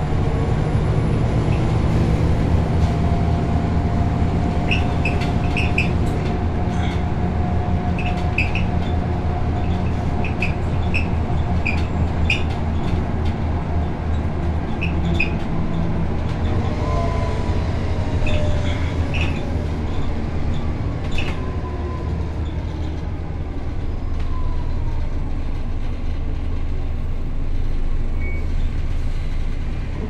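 Inside a Scania L94UA city bus under way: the diesel engine's steady low drone, with faint whining tones that slide up and down in pitch and scattered light clicks and rattles, mostly in the first half.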